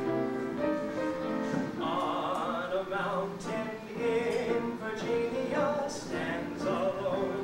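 A singer performing a song with instrumental accompaniment, holding notes with a wavering vibrato over struck chords.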